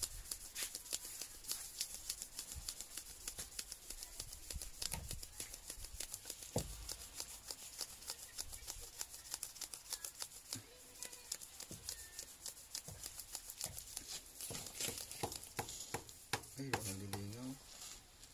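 Small metal fishing lure rubbed back and forth by hand on fine 1000-grit sandpaper, a quick run of short scratching strokes: the finishing sanding that polishes the metal to a shine. A brief low voice-like call sounds near the end.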